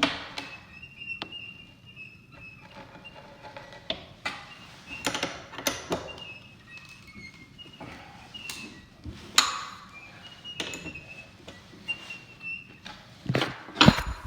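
Scattered knocks and clicks of hands and a metal tool handling a floor sander's drum while fitting and tightening the sandpaper clamp, with short faint high squeaks between them and the loudest knocks near the end.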